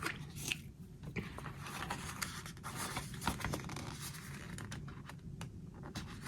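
Paper and sticker sheets being handled on a planner page: scattered rustles, light scrapes and small clicks as stickers are peeled and pressed down.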